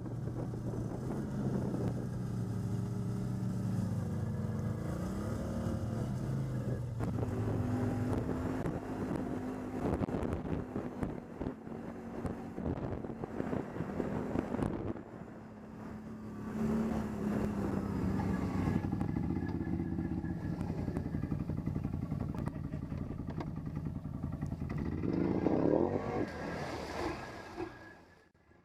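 ATV engine running and revving up and down over a rough trail, easing off briefly about halfway through before picking up again.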